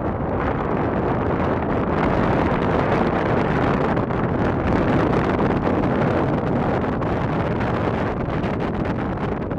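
Wind blowing across the camera microphone: a steady, loud rushing noise with no breaks.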